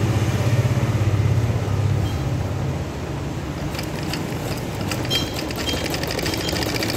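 A motor vehicle's engine running nearby with a low throbbing hum, fading away about two seconds in. A rapid light clicking comes in near the end.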